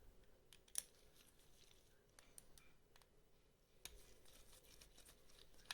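Faint, scattered small clicks of a screwdriver and screws being handled while the rear mount screws of a lens are taken out, with one sharper click about a second in; otherwise near silence.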